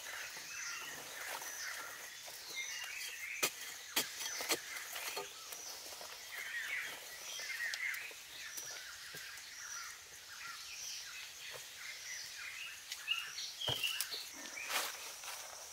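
Forest birds chirping over a steady high insect drone, with scattered knocks and scrapes of hands and a woven basket in loose soil as dirt is scooped up and dumped.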